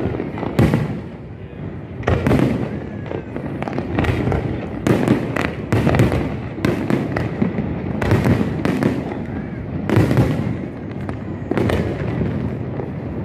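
Aerial fireworks display: shells bursting in an irregular run of loud bangs, one or two a second.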